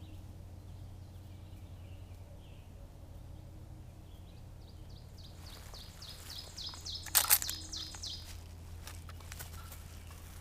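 A small songbird singing a quick run of short down-slurred notes from about five seconds in, over a steady low hum. About seven seconds in, a brief sharp rustle is the loudest sound.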